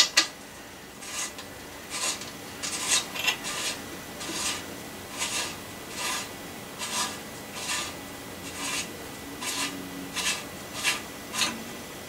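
A hand tool working a fitting at a mountain bike's bottom bracket makes short rasping metal scrapes, a little more than one a second, as the old part is worked loose.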